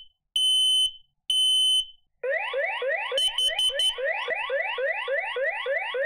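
Smoke alarm sounding its test: two loud, steady high-pitched beeps about half a second each. About two seconds in, the relayed smoke-alarm alert starts: a fast repeating rising siren sweep, about three a second, with a few short high beeps over it near the middle.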